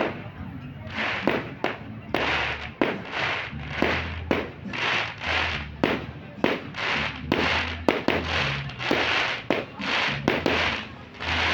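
Fireworks going off in quick succession: sharp bangs mixed with repeated hissing bursts, more than one a second.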